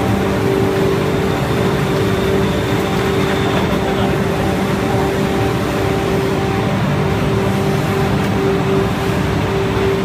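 Flax and jute fiber cleaning and recycling machine running steadily: a continuous machine noise with a steady hum of a few held tones.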